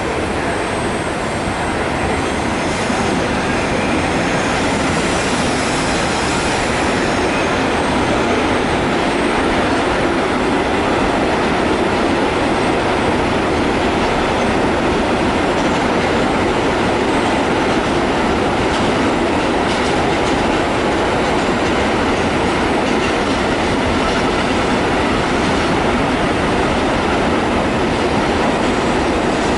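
A train passing close by on the rails: steady, loud noise of wheels rolling on the track.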